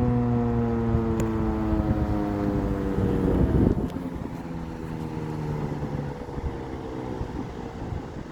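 Outdoor tornado warning siren winding down at the end of its one-minute alert test: its tone slides slowly lower in pitch and fades. A brief rough rumble of noise comes about three seconds in.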